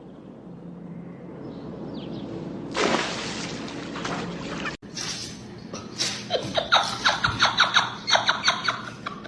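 An animal squealing in a rapid series of short, sharp squeals, about two or three a second, starting a little under halfway through; before that there is only a noisy background with a louder rush of noise about three seconds in.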